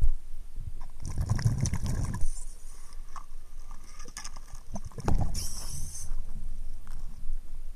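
Muffled underwater noise picked up by a camera held under water: two spells of low rumbling water movement, one about a second in and one about five seconds in, with scattered small knocks and clicks from the camera being handled.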